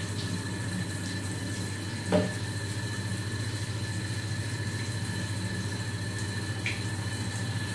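A steady machine hum with a constant hiss, and one short knock about two seconds in.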